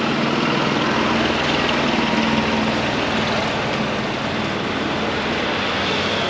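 Steady road traffic noise: the engines and tyres of vehicles passing on a road.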